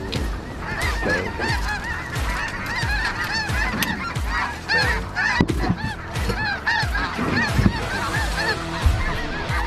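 A flock of geese calling, many short honks and yelps overlapping continuously.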